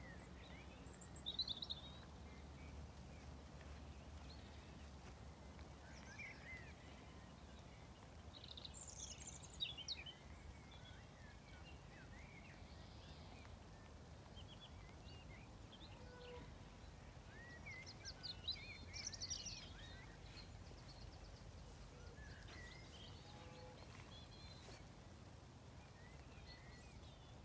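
Faint birdsong: scattered short chirps and calls of small birds over a quiet outdoor background, livelier around a third of the way in and again about two-thirds in.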